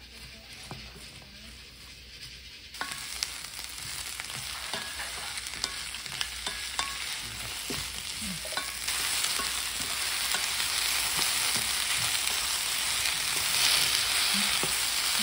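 Sliced onion, cabbage, green onion and green chillies sizzling in hot oil in a frying pan as they are stir-fried with a wooden spatula, the spatula clicking and scraping against the pan. The sizzle comes in about three seconds in and grows louder about nine seconds in as the pan heats the vegetables.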